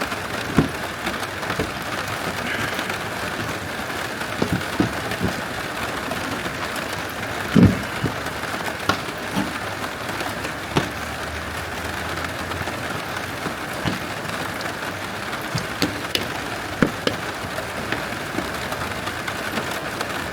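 Light clicks and knocks of parts being handled and fitted as the air filter is refitted in the engine bay, with one louder thump about seven and a half seconds in, over a steady rain-like hiss.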